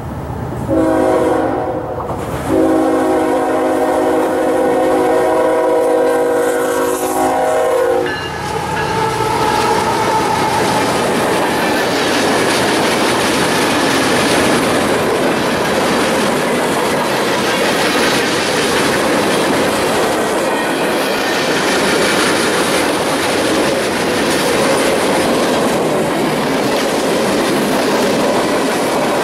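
Freight train's diesel locomotive horn sounding a multi-note chord, a short blast and then a long one held about five seconds. The train's cars then roll past with a steady clickety-clack of wheels over the rail joints.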